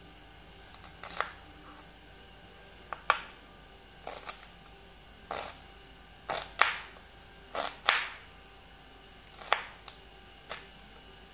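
Kitchen knife chopping red onion on a plastic cutting board: about a dozen separate chops at an uneven pace, several in quick pairs, each a sharp knock of the blade meeting the board.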